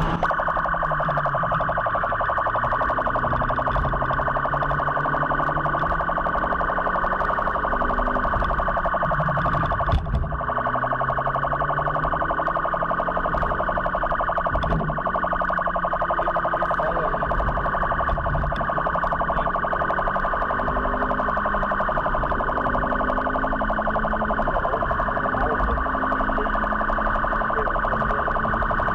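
Police car's electronic siren sounding continuously in a fast-cycling tone, heard from inside the car.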